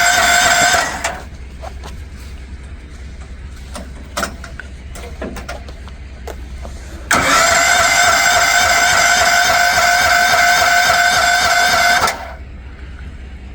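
Electric starter cranking the Future FT15 mini excavator's gasoline engine without it catching: a steady whine that stops about a second in, a few light clicks, then a second crank of about five seconds starting around seven seconds in. The owners suspect old, bad gas as the reason it won't start.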